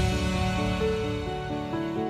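Soft background music: a slow melody of held notes, growing quieter.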